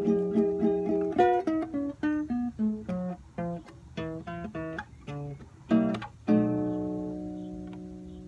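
Acoustic guitar playing a blues in B: repeated strummed chords, then a descending run of single picked notes and short licks, ending on a final chord about six seconds in that rings and slowly fades.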